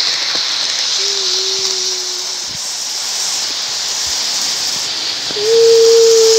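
Postwar Lionel 2065 4-6-4 model steam locomotive running with its cars on the track: a steady electric-motor hum and the hiss of wheels on rails, getting louder about five seconds in as the train comes round past again.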